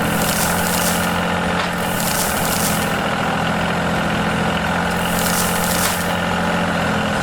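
Steady heavy engine hum like a truck running, with a hiss that swells and fades about every three seconds.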